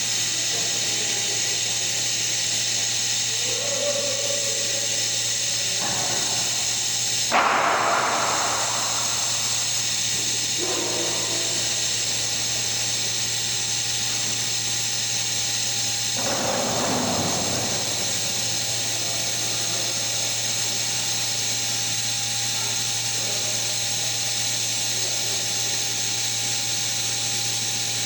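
A power tool's motor running with a steady high whine and a low hum, with louder, rougher stretches about seven and sixteen seconds in.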